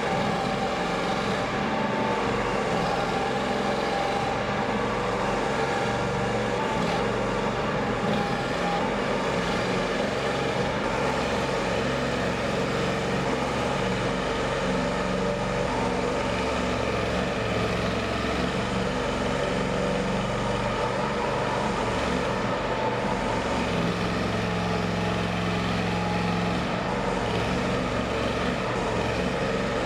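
Gasoline engine of a compact mini excavator (AGT QK30R, 23 HP) running steadily, its low tone shifting for a few seconds near the end.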